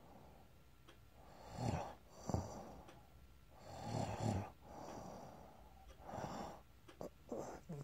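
Snoring in sleep: four slow, rough breaths about two seconds apart, each with a low rattling buzz.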